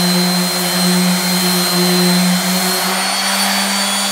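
DeWalt DWE6423 random orbit sander running steadily with a 120-grit disc against plywood, a steady hum under a high whine. About three seconds in, its pitch rises slightly as the pad comes off the wood.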